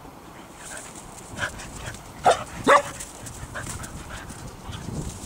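A dog giving two short, loud barks about half a second apart, a little over two seconds in, the second dropping in pitch, after a softer bark or yelp about a second and a half in. She is barking at a rabbit she has caught.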